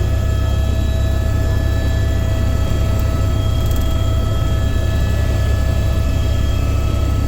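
Helicopter in flight: a steady loud low rumble from engine and rotor, with several steady high whining tones on top, unchanging throughout.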